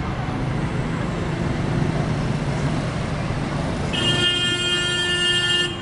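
City street traffic: a steady hum of passing cars and their tyres. About four seconds in, a car horn sounds and is held for nearly two seconds.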